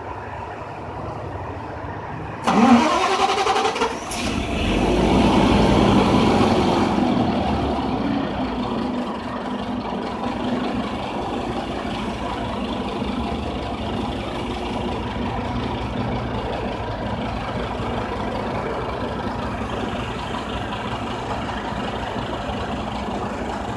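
Daewoo BS106 city bus engine being started: a starter whine rises in pitch for about a second and a half, the engine catches, flares up, then settles into a steady idle.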